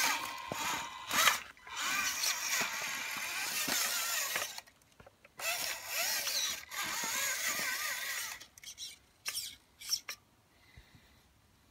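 RC scale crawler's electric motor and gears whining as it is driven over stone steps, the pitch wavering up and down with the throttle. It runs in two long bursts separated by a short pause, then a few quick blips near the end.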